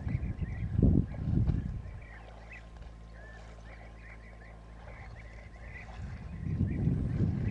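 Birds chirping in quick, repeated short calls, over low rumbling gusts of wind on the microphone in the first two seconds and again near the end, with a quieter steady low hum in between.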